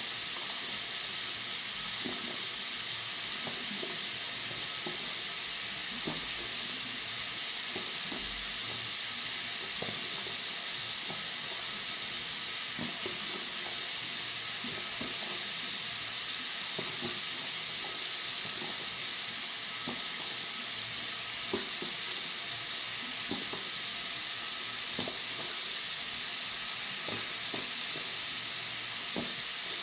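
Water running steadily from a bathroom sink tap into the basin: a constant, bright hiss with faint, irregular little splashes.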